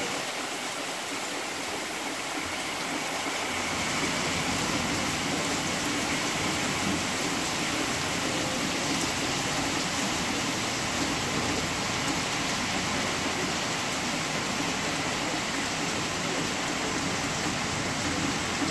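Heavy rain pouring down on trees and foliage: a steady, even rush of rain that grows a little louder about four seconds in.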